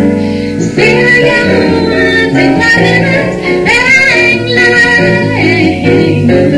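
A jazz song played by piano and plucked double bass, with a woman's voice singing.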